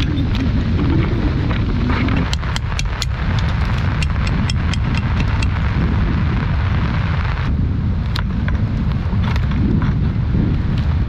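Steady heavy rain with wind buffeting the microphone, a continuous deep rumble under a hiss of falling rain. A scatter of sharp clicks and ticks comes between about two and five seconds in.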